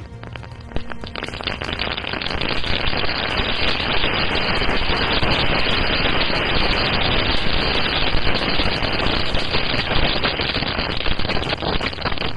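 A heap of about a thousand chitput firecracker pellets going off together: a dense, rapid crackle of sharp pops that builds over the first few seconds and stays thick to the end.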